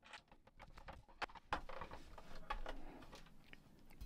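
Faint clicks and scraping of a screwdriver driving screws into the plastic back casing of a small radio cassette recorder, with a few sharper ticks.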